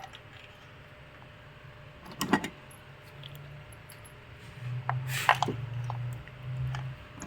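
Metal hand tools clinking and clicking a few times as new spark plugs are fitted, with a low hum in the background through the second half.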